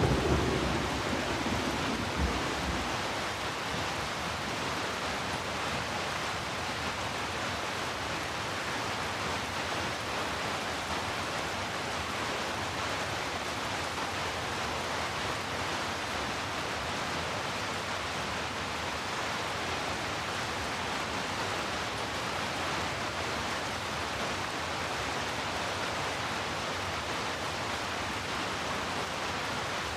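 Steady heavy rain. The low rumble of a thunderclap dies away in the first few seconds.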